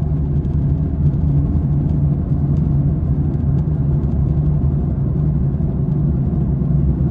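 Steady low drone inside a moving car's cabin from a failing right-side wheel bearing, blended with road and tyre noise.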